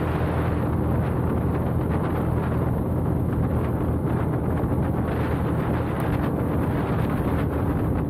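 Motorcycle engine running steadily at cruising speed, with wind rushing over the camera microphone.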